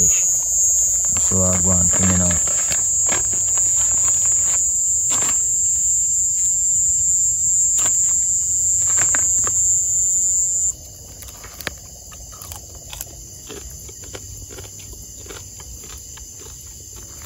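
A night insect, cricket-like, singing one steady high trill, loud until it drops away sharply about ten seconds in and then goes on faintly. Small clicks and taps of a fork against a plastic food tray are scattered through it.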